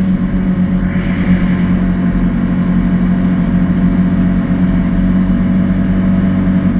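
Can-Am Commander 800 side-by-side's V-twin engine running at a steady, even speed while the machine is driven, heard from inside the cab.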